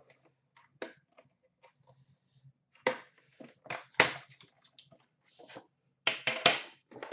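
Plastic shrink wrap crinkling and tearing as a sealed trading-card box is unwrapped, in irregular sharp crackles that are loudest about three and four seconds in and in a quick cluster near the end.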